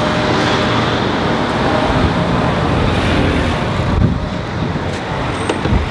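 Steady outdoor road-traffic noise, with wind buffeting the microphone in a few low bumps.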